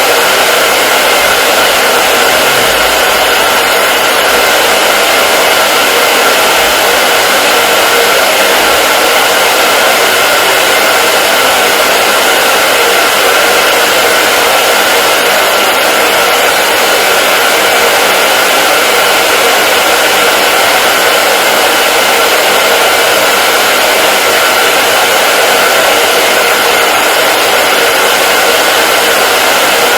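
Hair dryer running continuously at a steady setting: an even, unchanging rushing noise of fan and airflow with a faint motor whine, looped as white noise for sleep.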